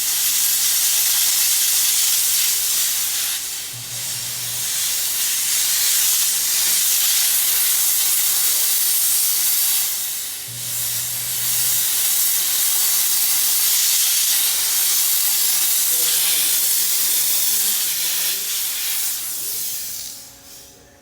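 Dry vapor steam cleaner jetting steam, a loud steady hiss that eases off briefly twice before cutting out near the end.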